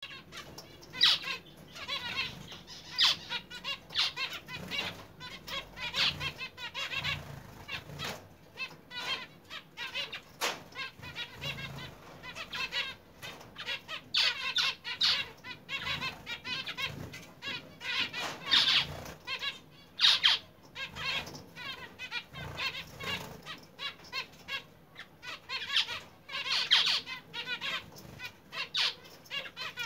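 A flock of caged zebra finches calling constantly, many short calls overlapping, with louder bouts of calling every few seconds and some wing fluttering as birds move between perches.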